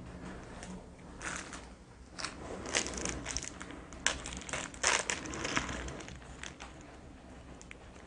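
Board game components and their packaging being handled, with intermittent soft crinkling and rustling. The rustles are most frequent around the middle.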